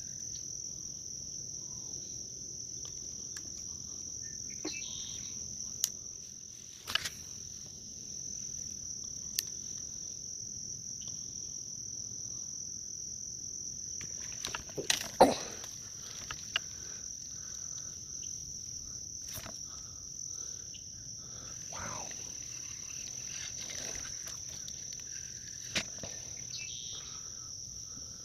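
Insects keep up a steady high-pitched trill, with a few sharp clicks and knocks over it, the loudest about fifteen seconds in.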